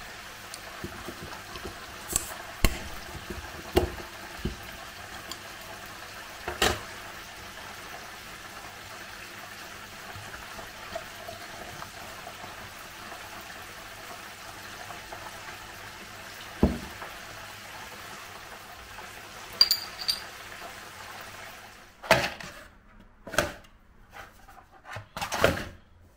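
Lager poured from a glass bottle into a glass, a steady fizzing, splashing fill with a few sharp clicks. Near the end come several louder knocks.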